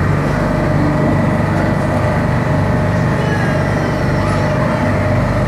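Tour boat's engine running at a steady low drone.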